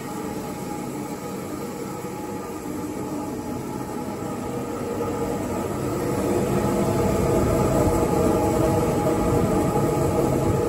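Car wash dryer blowers on the LaserWash M5 gantry running with a steady rushing hum, getting louder about six seconds in.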